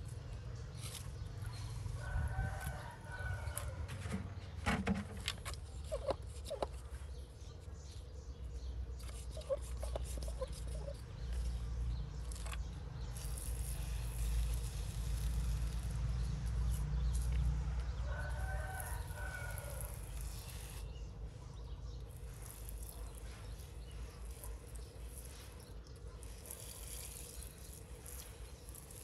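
A rooster crows twice in the background, about two seconds in and again later. In the middle, a hand-pump pressure sprayer hisses as it sprays water onto potting soil, with a few clicks of handling shortly before.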